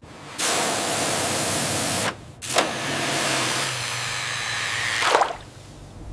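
Pressurised water spray hissing against a rusted metal toy motorcycle in two bursts, the first about a second and a half long and the second about three seconds, with a low motor hum under the second.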